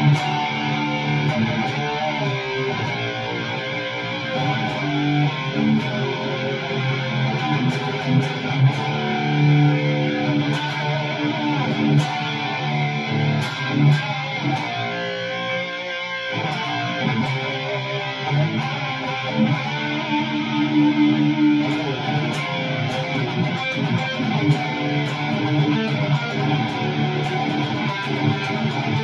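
Electric guitar played through a Line 6 Helix LT amp modeller, demonstrating an 80s-style rhythm tone: strummed chords with a short break about sixteen seconds in.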